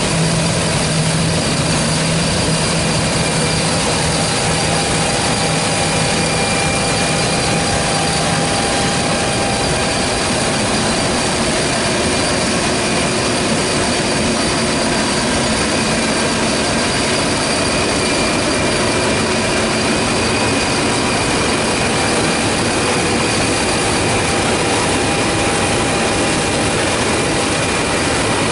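John Deere T670i combine harvester running steadily while cutting spring barley: a dense, even machine din with faint steady whines. A low hum drops out about eight seconds in.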